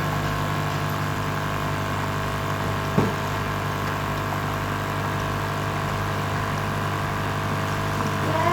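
A small electric pump or motor in a hot-water appliance humming steadily while it runs, with one sharp click about three seconds in.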